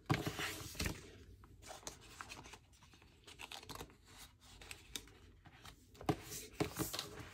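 Paper sticker sheets rustling and scraping as they are handled and slid into a binder's clear plastic pocket pages. The handling comes in short quiet bursts, most in the first second and again near the end.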